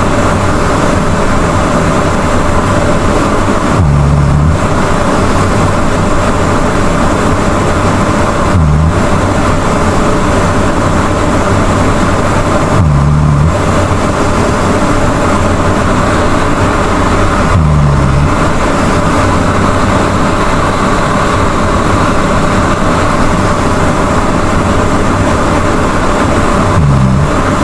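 A sleeping person snoring loudly: five short, low snores, mostly four to five seconds apart with a longer gap before the last, over a steady hiss.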